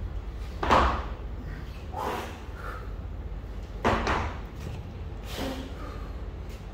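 Four short, sharp noises, one every one and a half to two seconds, as a man lifts a kettlebell between the rack at his chest and overhead lockout. They are forced breaths, with thuds from the bell and the lifter's body, and the loudest comes about a second in.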